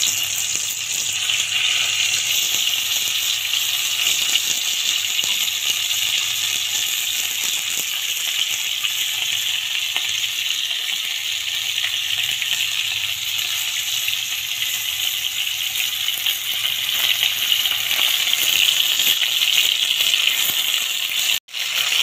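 Turmeric-coated small river fish frying in hot oil in a kadai, a steady loud sizzle throughout, breaking off briefly near the end.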